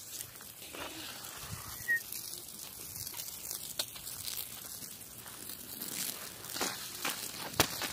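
Rustling and rubbing of a phone being handled against clothing, with a few scattered sharp clicks; the loudest click comes near the end.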